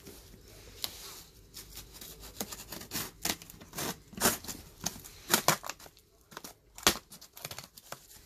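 Brown packing tape being peeled and ripped off a cardboard shipping box in a string of irregular rasping pulls, with the cardboard flaps rustling as the box is opened.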